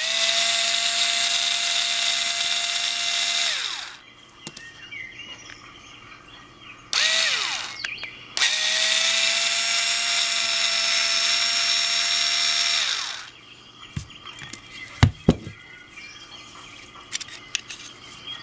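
Small electric screwdriver running in three spurts (a long one, a short one and another long one), each holding a steady whine and winding down as it is released, backing out the screws of a trigger lock's housing. A few sharp clicks follow near the end.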